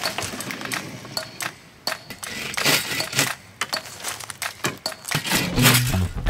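Bark being stripped by hand from a freshly cut green stick: irregular crackling and tearing. Music fades in near the end.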